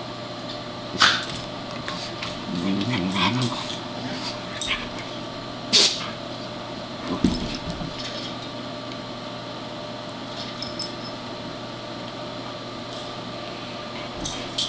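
Two pets play-fighting: low, throaty play-growls with a few sharp yips or snaps, busiest in the first half and tapering off to small scuffles in the second half.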